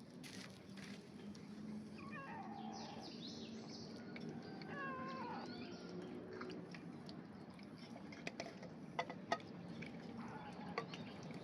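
Cats meowing: a few short, bending meows about two and five seconds in, followed by several sharp clicks near the end.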